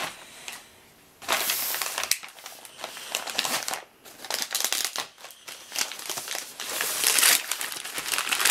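White plastic poly shipping mailer crinkling and rustling as it is handled and pulled open, in uneven bursts starting about a second in.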